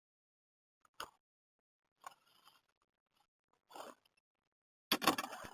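Near silence broken by a few isolated soft clicks and scrapes, then a quick cluster of clicking and scraping near the end.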